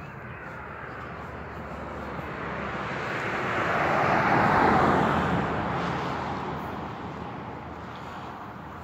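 A vehicle passing by on a nearby road: tyre and engine noise swelling to its loudest about halfway through, then fading away.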